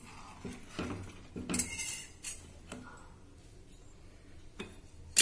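Steel ladle clinking and scraping against a metal cooking pot while stirring, a handful of sharp knocks in the first three seconds, then one more near the end.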